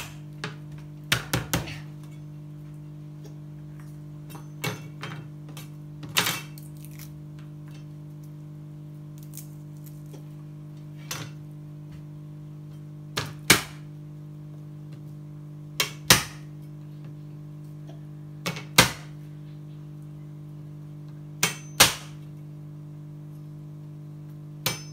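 Garlic cloves being smashed with the flat of a kitchen knife on a plastic cutting board: sharp knocks, a few scattered ones at first, then mostly in close pairs about every two and a half to three seconds. A steady low hum runs underneath.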